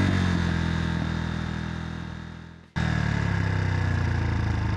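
Honda CRF150R's single-cylinder four-stroke engine, fitted with a 240 big-bore kit, dropping back from a rev and fading away over the first two and a half seconds, then, after an abrupt jump back in, idling steadily.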